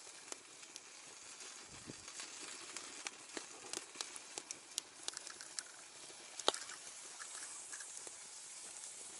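Wood campfire crackling in a fire grill: a steady hiss with irregular sharp pops, one louder pop about six and a half seconds in.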